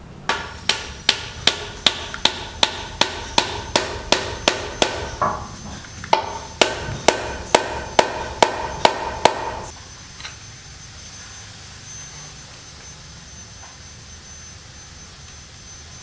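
Hammer striking over and over while a wooden chair frame is assembled from timber battens, about two and a half blows a second, each with a short ringing note. There are two runs of blows with a brief pause between them. The hammering stops about ten seconds in, leaving a faint steady high-pitched whine.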